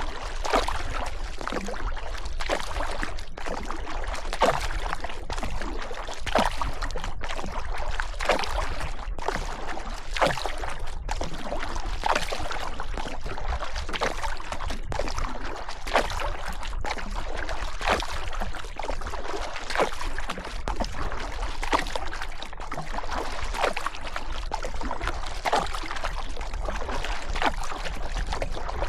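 Paddle strokes in river water, a short splash about once a second in an even rhythm, over a steady low rumble.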